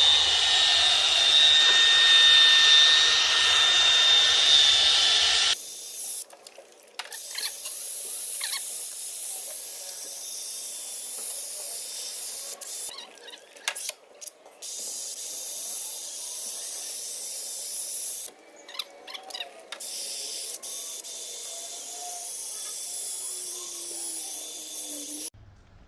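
Milwaukee drill spinning a sanding pad against a plastic headlight lens, a loud, steady high whine, which cuts off abruptly about five and a half seconds in. After that there is a quieter hiss, broken by several short gaps.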